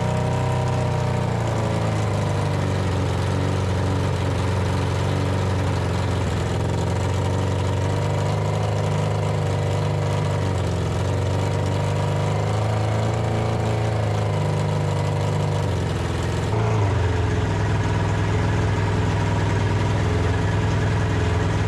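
Unmuffled Honda CBR600 inline-four motorcycle engine idling steadily, its pitch wavering briefly a couple of times; about sixteen seconds in its tone changes and it gets a little louder.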